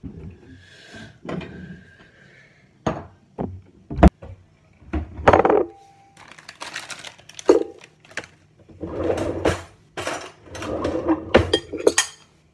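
A ceramic bowl being handled on a kitchen counter: a few sharp knocks and clinks against the worktop, with longer rattling stretches between.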